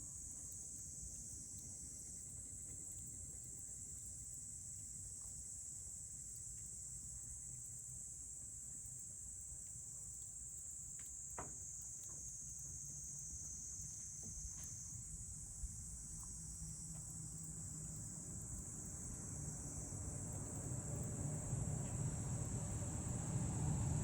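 A steady, high-pitched chorus of night insects with a few faint campfire crackles. A low rumble grows louder near the end.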